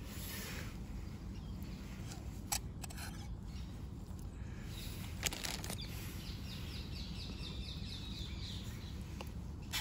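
Brass spirit burner being handled: a few light, sharp metallic clicks as its lid comes off and its screw cap is gripped and twisted, over steady outdoor background noise. About two-thirds through, a quick run of high ticks, about six a second, lasts for about two seconds.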